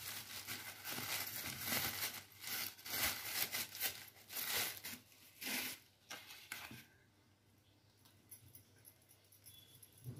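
Flour being sifted by hand through a plastic sieve: irregular scratchy rustling as the hand rubs the flour through the mesh, fading out about seven seconds in.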